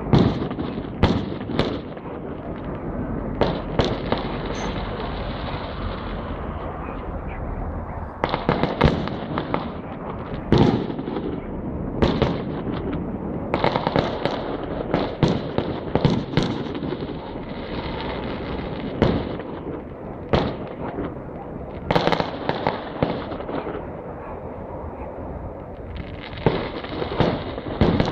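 Fireworks going off: a steady crackling barrage punctuated by many sharp, irregular bangs.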